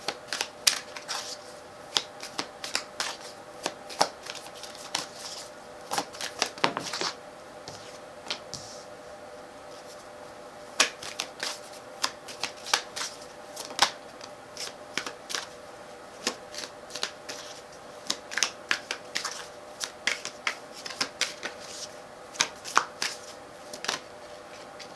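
Tarot cards being shuffled and handled: a long run of irregular sharp card snaps and flicks, with a short denser flurry about six to seven seconds in, over a faint steady hum.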